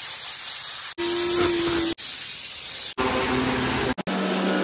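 Hissing spray from car-wash steam and foam guns, in short clips that cut off about once a second. In one clip a steady hum runs under the hiss.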